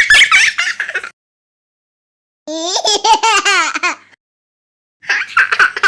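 Laughter sound effects in three short bursts after a punchline. The middle burst is a quick run of rising and falling ha-ha-ha.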